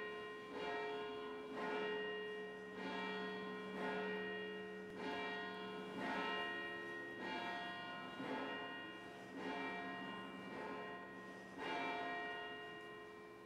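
Church bells ringing, a new stroke about once a second, each bell ringing on under the next and the pitches changing from stroke to stroke; the last stroke near the end is left to die away.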